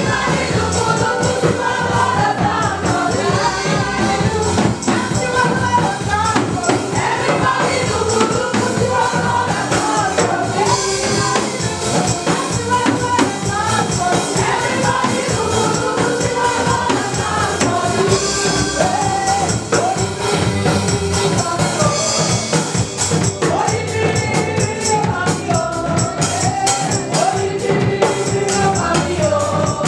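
Live gospel praise and worship music: a worship team and congregation singing together over a steady, fast beat.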